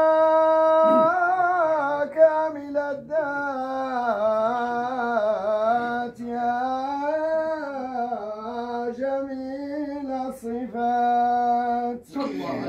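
A male voice chanting a Sufi dhikr melody of an 'imara' (hadra) ritual, unaccompanied, in long held notes that bend and ornament slowly, with short breaths between phrases.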